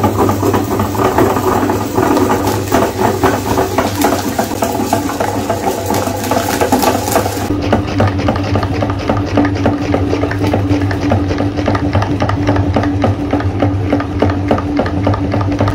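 Meat grinder running, a steady motor hum with dense rattling and crunching as chocolate cookies are ground and pushed out through the plate. About halfway through, the hum changes to a clearer, steadier tone.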